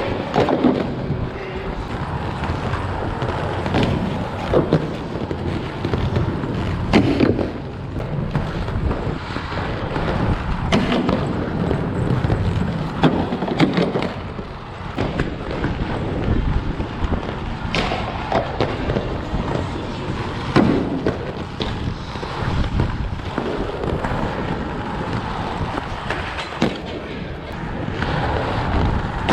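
Inline skate wheels rolling on pavement, with irregularly spaced sharp clacks and thuds from skates hitting and landing off a portable grind rail.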